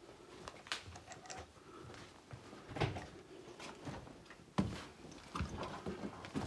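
Footsteps over debris in a damaged building, with irregular knocks, scrapes and crunches of loose material underfoot; two louder knocks stand out, about three and four and a half seconds in.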